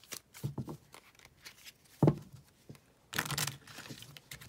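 Tarot deck being handled and shuffled: a few light clicks, a thump about two seconds in, then a quick rustling run of cards being shuffled about three seconds in.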